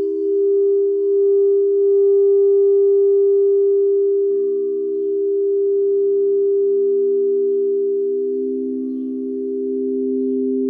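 Singing bowls ringing in long sustained tones that pulse with a slow waver. A second, lower tone joins about four seconds in and grows stronger near the end.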